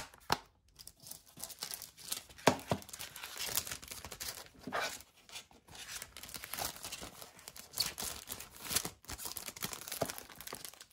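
Clear plastic sleeve crinkling and rustling as a plastic DVD case is handled, with irregular sharp clicks and taps of the case.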